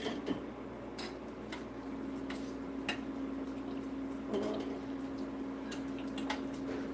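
Metal wire skimmer clinking lightly against a saucepan and plate as fried food is lifted out of the oil: a scatter of separate small clicks and taps. A steady low hum sets in a little under two seconds in.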